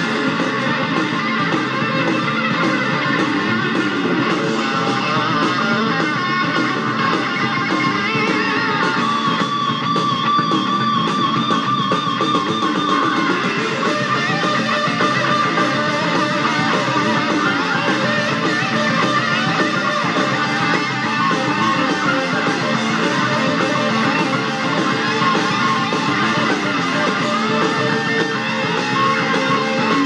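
Live rock band recording playing, with electric guitar to the fore over bass and drums, and wavering held guitar notes about a third of the way in.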